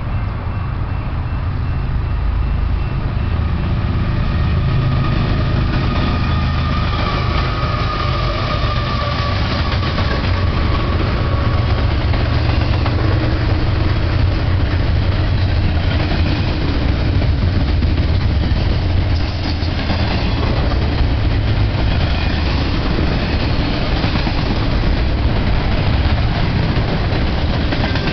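Double-stack intermodal freight train passing close by: a deep diesel rumble under the steady rolling noise of wheels on rail, building over the first few seconds and then holding steady as the container cars stream past. A faint high whine slides slightly downward around the middle.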